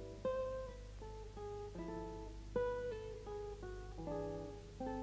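Background music: a guitar plucking a flowing run of notes and chords, over a steady low hum.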